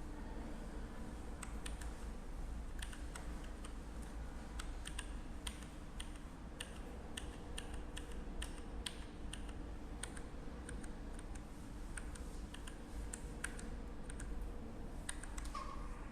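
Typing on an AJAZZ K870T mechanical keyboard: irregular clicks of the key switches, a few a second, over a steady low hum.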